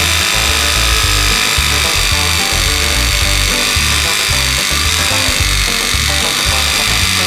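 Background music with a steady beat, laid over a scroll saw running steadily as it cuts wood.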